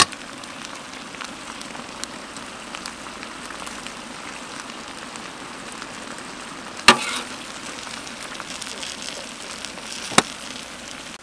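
A large aluminium pot boiling hard over a wood fire, a steady bubbling hiss, broken by sharp clinks of metal tongs on metal: the loudest about seven seconds in, another about ten seconds in.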